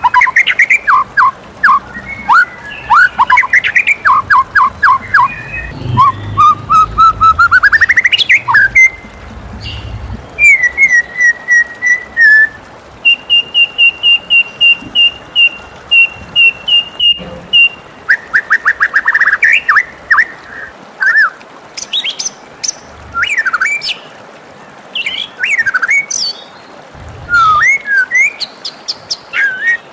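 White-rumped shama singing a varied, rich song of whistled phrases: quick chirping runs, a long rising glide, a string of evenly repeated clear notes near the middle, then sweeping slurred whistles.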